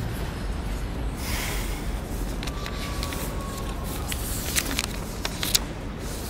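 Steady low rumble of city street ambience and distant traffic, with a few short crackles of a paper being handled in the second half.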